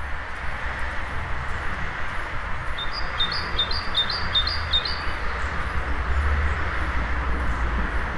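Town-centre dawn chorus: a bird sings a quick run of about six repeated two-note chirps partway through, with fainter high repeated calls from another bird throughout. Underneath is a steady background of town noise with a low rumble.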